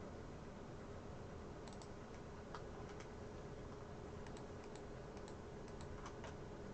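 Faint, scattered clicks of a computer mouse and keyboard during face selection in Blender, starting about two seconds in, over a faint steady hum and hiss.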